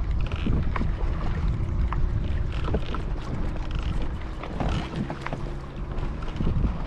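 Wind buffeting the microphone aboard a small fishing boat, a steady heavy rumble with scattered light knocks.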